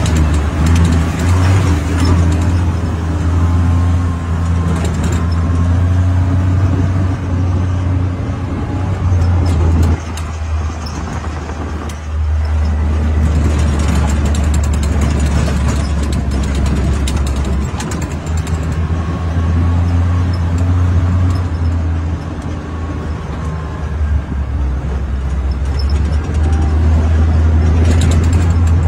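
Off-road utility vehicle's engine running steadily as it drives along a bumpy dirt track, with occasional knocks and rattles. The engine eases off briefly about ten seconds in, then picks up again.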